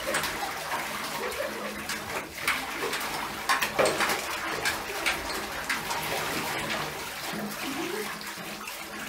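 Water splashing in a bathtub as a wet German Shepherd puppy paws and steps in the shallow bathwater, with several sharper splashes around the middle, over water running steadily from the tap.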